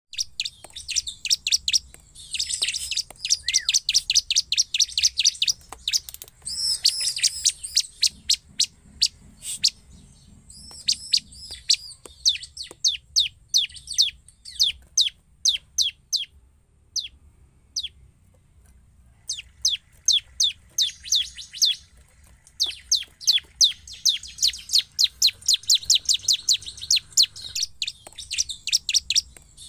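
Bar-winged prinia (ciblek) singing vigorously: long runs of rapid, high, sharp notes, each a quick downward sweep, repeated several times a second. The runs thin out and pause briefly a little past halfway, then pick up again.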